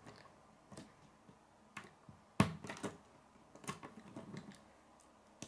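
Plastic K'nex pieces clicking as connectors are snapped onto rods and parts are handled: a handful of separate sharp clicks, the loudest about two and a half seconds in.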